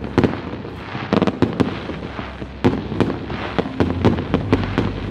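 Fireworks display: a quick, uneven run of sharp bangs and crackling pops from bursting shells, several a second, over a low rumble.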